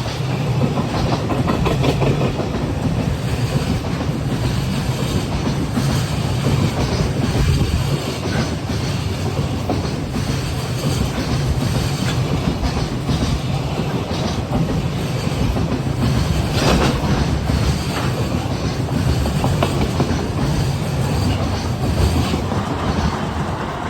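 A freight train's Koki container wagons rolling steadily past, with a constant low rumble and wheels clattering over the rail joints in a clickety-clack.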